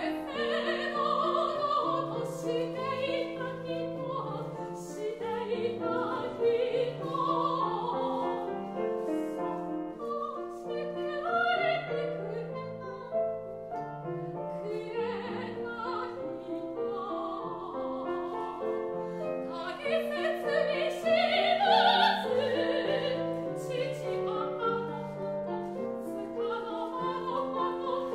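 Soprano singing a Japanese art song with piano accompaniment, her voice wavering with vibrato. The sung line climbs to its loudest, highest phrase about three quarters of the way through.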